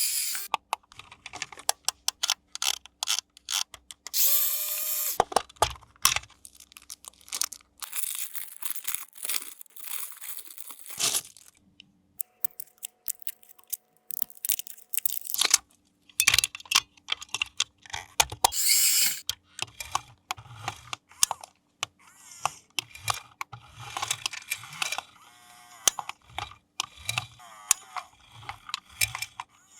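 Hands handling an RC toy and its packaging: many sharp plastic clicks and rattles, with several short rushing bursts of a second or so, a brief rising whir about four seconds in, and a steady tone about halfway through.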